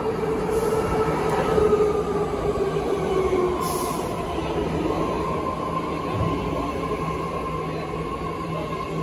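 BART Fleet of the Future train pulling in along the platform and slowing, its motors whining and falling steadily in pitch over the rumble of the wheels. There is a short hiss about three and a half seconds in.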